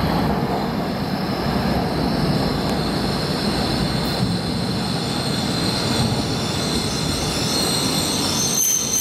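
E5 series Shinkansen pulling into the platform, a steady rushing run-in noise. From about halfway through, high brake and wheel squeal rises over it as the train slows to a stop.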